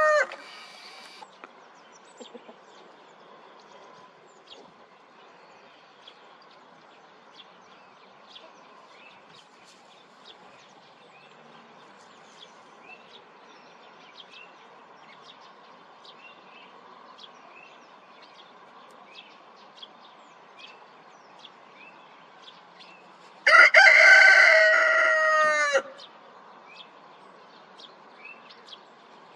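Rooster crowing: the tail of one crow in the first moment, then a single loud cock-a-doodle-doo about two seconds long, roughly 24 seconds in, its pitch dropping at the end. Faint short chirps come and go in the background.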